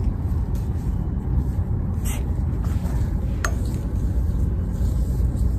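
Plastic clothes hangers clicking against a rack as garments are pulled and handled, two sharp clicks about two and three and a half seconds in, over a steady low rumble.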